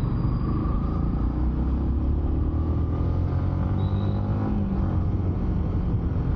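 Motorcycle engine running while riding, heard from the bike itself. Its note climbs in pitch around the middle as the bike picks up speed.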